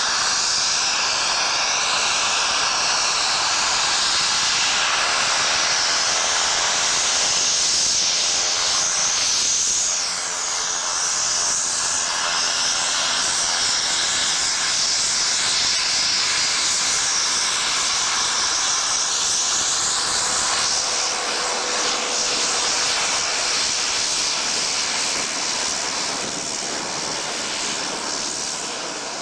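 Fairchild Swearingen Metro's Garrett TPE331 turboprop engines running as the aircraft taxis and lines up on the runway: a loud, steady, high whine whose pitch wavers slightly as the aircraft turns and moves.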